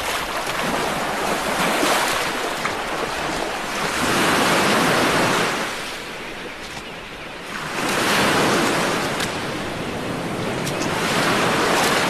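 Sea surf washing over a rocky shore, swelling and falling back about every three to four seconds.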